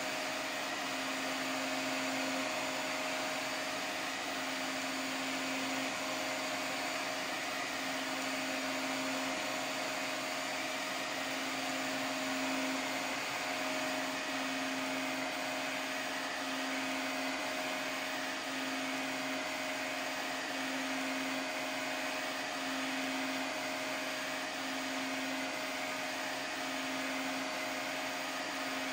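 Large 3D printer running a print: a steady fan whir, with the stepper motors humming in stretches that start and stop about once a second as the print head moves.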